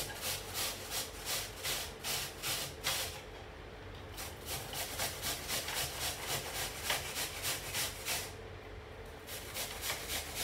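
A peeled apple grated on the coarse side of a metal box grater: a steady run of rasping strokes, about three a second, with two brief pauses.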